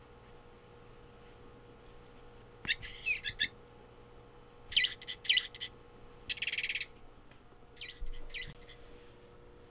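Sound chip in a GiGwi Melody Chaser plush bird cat toy playing recorded bird chirps, set off by light shocks as the toy is shaken: four short bursts of high chirping, the first about three seconds in.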